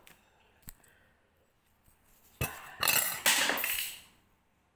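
A light clink, then loud slurping of instant noodle soup from a bowl in three quick pulls lasting about a second and a half.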